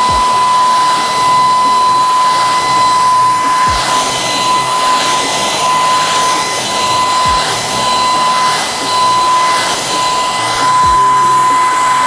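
Greenote GSC50 cordless cyclonic vacuum running at maximum power with its mini motorized brush: a steady high-pitched whine over the rush of suction air.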